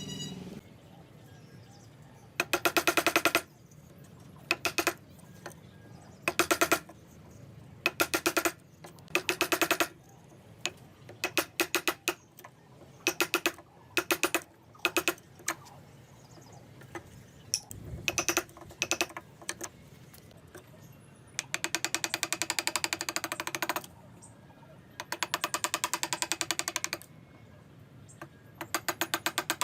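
A saw cutting wood in repeated strokes of uneven length, each a fast rasp of teeth with a steady pitch. The strokes are short up to about two-thirds of the way in, then turn into three longer strokes.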